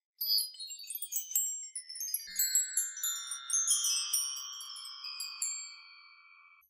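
Wind chimes tinkling: a quick cascade of metallic strikes, then several ringing tones that slowly fade out.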